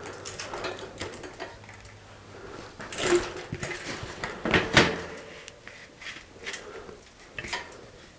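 Clicks and light metallic clatter of a bicycle's rear wheel being fitted into the frame, the chain and derailleur rattling against the rear cogs. There are louder knocks about three seconds in and again about four and a half seconds in.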